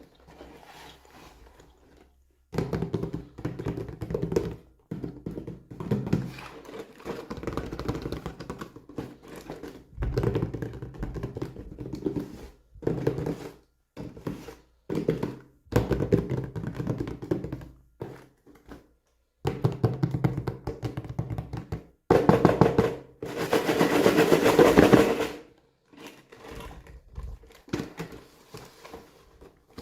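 Close-up handling of plastic toy packaging and small doll pieces: knocks, taps and rubbing in short stretches that start and stop abruptly, with a louder, hissier rustle about three-quarters of the way through.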